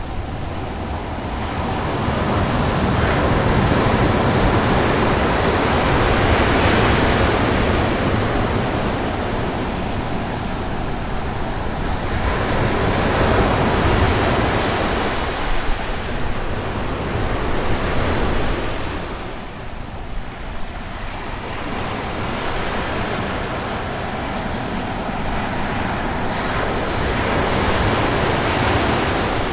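Sea surf breaking and washing on a beach: a loud, steady rush of noise that swells and eases every several seconds, with wind rumbling on the microphone.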